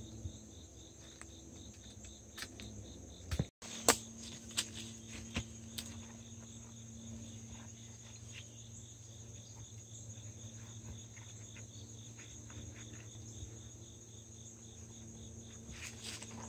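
Insects chirping in a steady, high-pitched chorus, with a few light clicks a few seconds in from handling the fence wire and tool.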